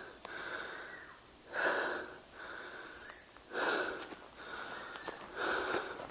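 A person breathing hard while climbing a steep hiking trail uphill, with a loud, rasping breath about every one to two seconds and fainter breaths between.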